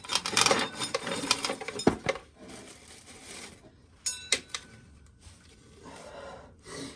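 Corn sheller and loose corn kernels rattling, tailing off over about two seconds and ending in a sharp knock. Then quieter handling noise with a brief clatter about four seconds in.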